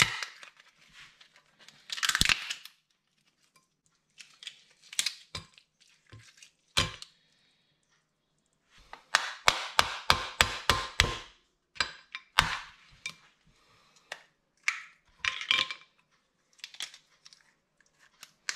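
Cooked lobster shell being cracked and broken apart by hand and with a knife: irregular sharp cracks and crunches, with a quick run of cracks about nine to eleven seconds in.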